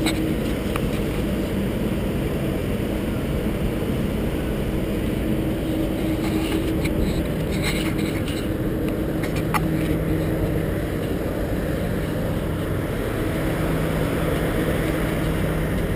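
Steady low machinery rumble with a droning hum that fades in and out, and a few light clicks.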